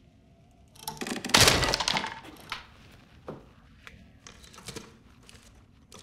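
A sudden loud crash and thud, as of something falling and breaking, about a second in. A few lighter knocks and small clatters follow.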